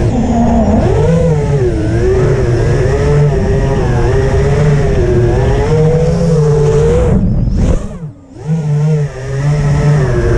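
FPV quadcopter's brushless motors and propellers buzzing, the pitch wavering up and down with the throttle. About eight seconds in the sound drops away briefly as the throttle is cut, then comes back.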